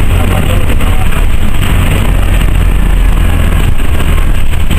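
Orion V transit bus's Detroit Diesel Series 50G natural-gas engine running while the bus is under way, heard from inside the bus as a loud, steady low drone.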